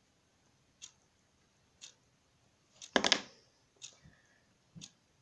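Light clicks and taps of small plastic items being handled over a tub of foam slime base, about one a second, with a louder, longer rattle about three seconds in.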